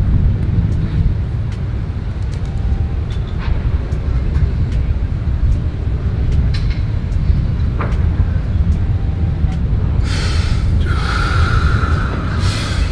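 A steady low rumble with a few faint clicks. About ten seconds in come three loud, hissing breaths forced through the mouth, part of Bhastrika-style breathwork.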